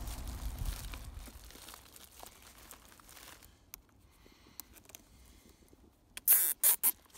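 Plastic flex duct liner crinkling as it is worked over a metal collar, fading out over the first few seconds. Near the end, a nylon cable tie is zipped tight through its ratchet in four or five quick, loud rasps.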